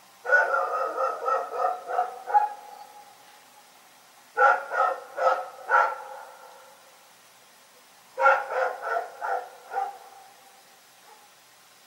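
A dog barking in three bouts of rapid barks, each lasting about two seconds and spaced about four seconds apart.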